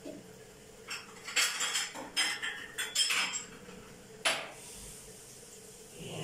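Kitchen utensil clattering and scraping against a frying pan and dish: a run of clinks and scrapes starting about a second in, then a single sharp clink near the middle.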